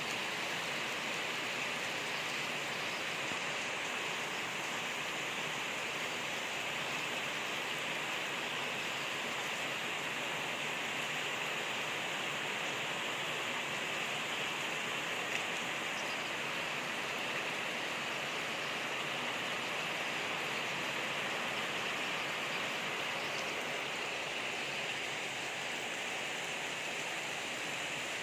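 Heavy rain from a rainstorm, pouring steadily without a break.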